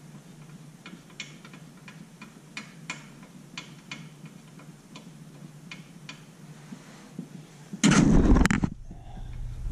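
Light metallic ticks, a few a second and irregular, as a lug nut is spun by hand onto a wheel-hub stud. About eight seconds in comes a loud rustling thump lasting under a second.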